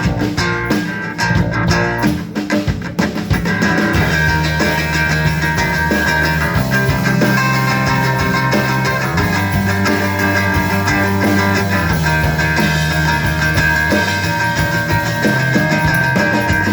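Live band playing an instrumental break: electric guitar with bass and drum kit, in a rock style.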